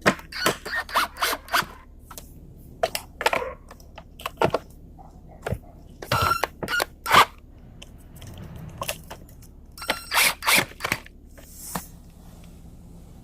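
Irregular scrapes, clicks and clinks of hand tools and metal parts as the screws holding the belt cover of a TroyBilt self-propelled mower are worked out, with a quick run of ticks about six seconds in.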